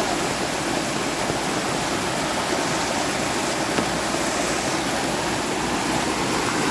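Muddy storm runoff from heavy rain rushing and churning down an eroded dirt street, spilling over a washed-out ledge in a steady, unbroken rush of water.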